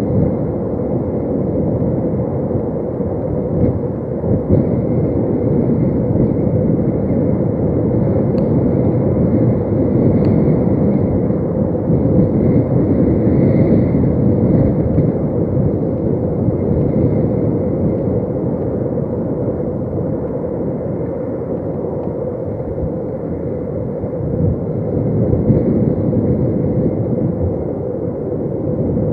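Strong wind buffeting the nest camera's microphone: a continuous low rumble that swells and eases in gusts.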